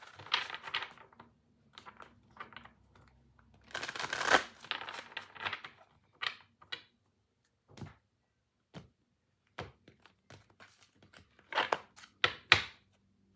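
A deck of tarot cards being shuffled by hand: two rustling, riffling stretches, then a series of sharp snaps and taps in the second half as cards are handled and set down.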